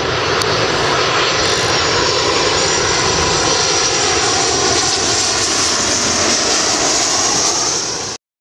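Jet airliner on short final passing close by, its engines running loud with a high whine over a broad rush. The sound cuts off abruptly near the end.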